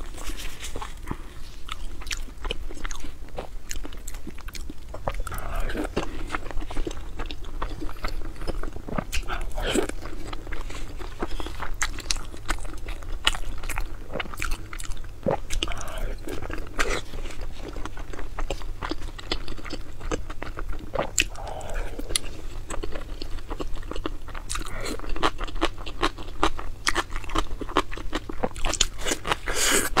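Close-miked chewing and biting of food: irregular crunchy bites and wet mouth clicks, in quick succession.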